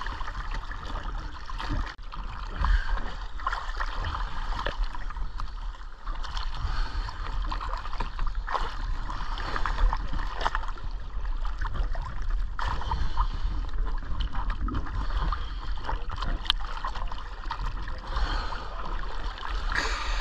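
Water sloshing and gurgling close to the microphone, with a steady low rumble underneath and scattered small clicks.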